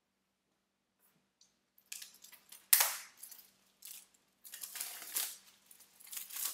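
Plastic shrink wrap being torn and peeled off a DVD case, crinkling in bursts from about two seconds in, with one sharp, loud crackle just under three seconds in.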